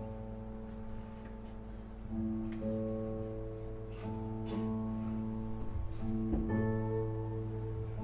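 Classical guitar quartet playing: four classical guitars holding slow, ringing chords, with fresh chords plucked about two, four and six and a half seconds in.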